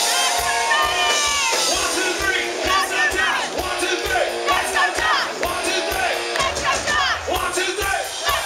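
Live rock band playing loud, with shouted vocals over a steady kick-drum beat and cymbals, and many voices shouting along.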